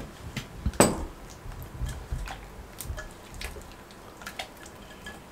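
Hands mixing chunks of beef in a yogurt marinade in a glass bowl: soft, faint wet squishing with small clicks, and one sharper click about a second in.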